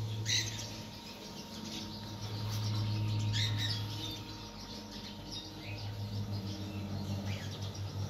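Centurion D5 sliding gate motor running slowly, driving the gate open on its rack during the limit-learning run: a low hum that swells about two and a half seconds in and turns into a fluttering pulse over the last couple of seconds. Birds chirp briefly several times over it.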